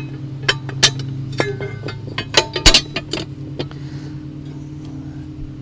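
Steel mower-bagger bracket plates clinking and knocking against each other as they are handled and fitted together by hand: a string of sharp metallic knocks, loudest a little under three seconds in, over a steady low hum.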